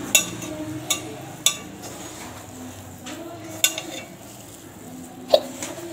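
A hand mixing a crumbly mix of soaked soya chunks, onion and flour in a stainless steel bowl: soft rustling with five sharp metal clinks against the bowl, the last the loudest.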